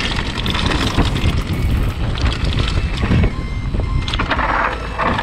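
Wind buffeting an action camera's microphone on a mountain bike descending at speed, over the rumble and rattling chatter of the bike's tyres and frame on a dusty dirt trail.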